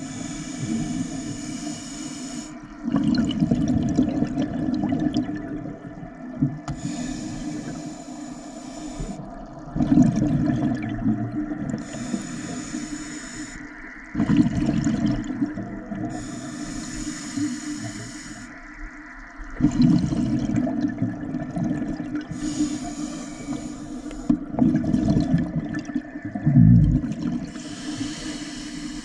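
Scuba regulator breathing underwater. Each inhale through the demand valve is a hiss, and each exhale is a burst of bubbling exhaust, in a slow, steady rhythm of about one breath every five seconds.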